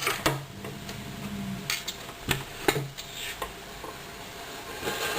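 A few light clicks and taps of a hard bakelite radio cabinet being handled, spaced irregularly.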